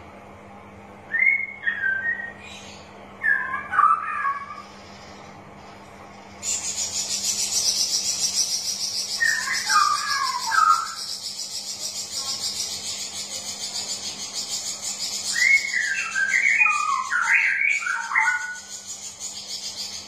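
Straw-headed bulbul singing: short phrases of rapid warbling notes, four phrases a few seconds apart, the last and longest near the end. About six seconds in, a high, finely pulsing hiss starts and carries on under the song.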